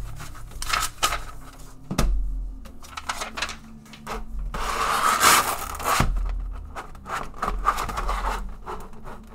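Clear plastic blister trays of an action-figure package being handled and pulled apart by gloved hands: irregular rustling and scraping of plastic with scattered clicks. A sharp knock comes about two seconds in, and the loudest stretch of rustling is around five seconds in.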